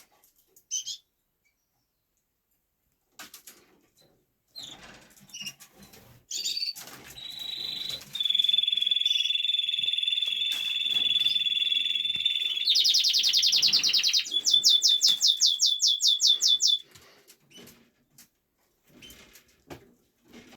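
Canary singing a long song of trilled phrases: a held, rolling note, then faster and higher trills, stopping about three-quarters of the way through. Softer chirps and wing flutters come before the song.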